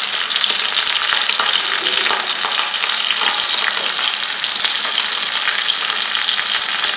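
Two whole fish frying in hot oil in a pot, sizzling steadily with a dense spatter of small crackles and pops.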